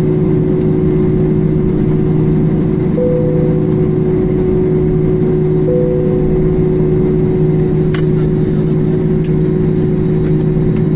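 Steady jet engine and cabin noise inside an airliner taxiing, a constant low hum with two brief higher tones about three and six seconds in and a few sharp clicks near the end.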